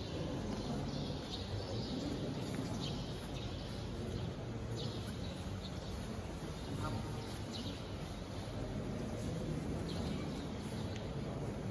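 Steady background hum of a large hall, with faint short high chirps every second or two.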